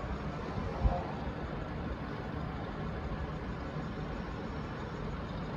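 V/Line VLocity diesel multiple unit VL15 idling at the platform, a steady low diesel rumble, with a single thump about a second in.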